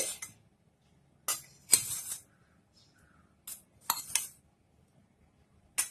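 Spoon clinking and scraping against a bowl in a handful of short, separate strikes while oil is spooned into dough.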